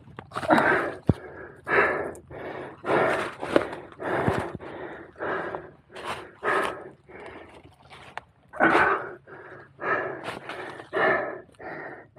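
A man breathing hard and fast from the effort of climbing a steep mountainside on all fours, a breath about every half second to second, with a couple of small knocks.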